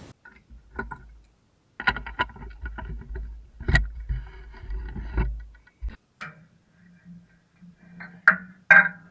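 Scattered knocks and clanks, some with a brief ring, with a low rumble through the middle of the stretch.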